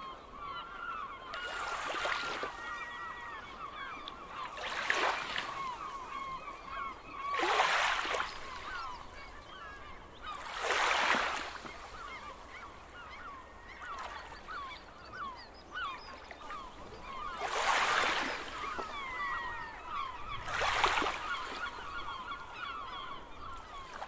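Small waves washing against a rocky shore six times, each wash about a second long, over a constant chatter of many birds calling.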